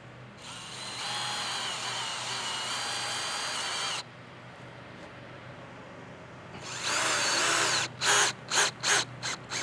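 Cordless drill driving lag screws into a wooden deck post. It runs with a steady whine for about three and a half seconds, stops, runs again near the end, and finishes with several short trigger bursts.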